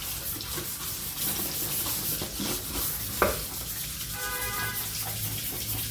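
Rag scrubbing a grate, a steady rubbing hiss, with a sharp click a little over three seconds in and a brief squeak about four seconds in.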